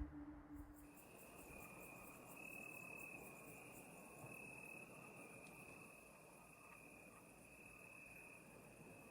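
Crickets trilling faintly and steadily in one unbroken high-pitched trill, with a faster, fainter pulsing chirp above it.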